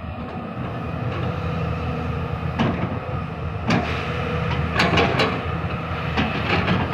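Heavy construction machinery clanking and rattling over a steady drone, with sharp knocks about a third of the way in and a cluster of them past the middle.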